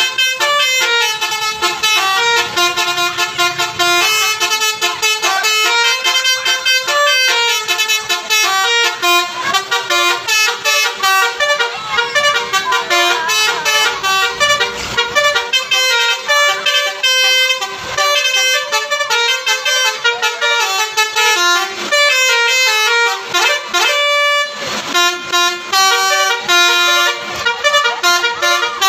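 Telolet basuri musical bus horn playing a quick, continuous melody of stepping tones, loud throughout with only brief breaks between phrases.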